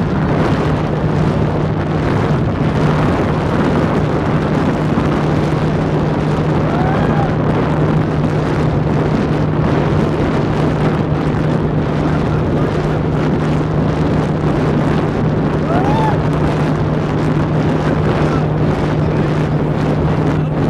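Speedboat engine running at a steady speed, a constant low hum under the rush of wind on the microphone and water.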